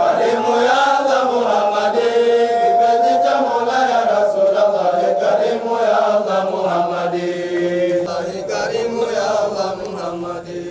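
Voices chanting an Arabic Islamic devotional chant in praise of the Prophet Muhammad, with long held notes, fading toward the end.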